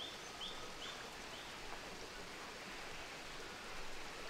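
Steady rush of a rainforest creek. Four short, high chirps about half a second apart sound in the first second and a half.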